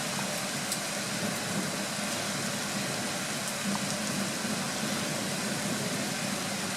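Steady rain falling during a summer thunderstorm: an even hiss with a few faint scattered ticks of drops, and no thunder.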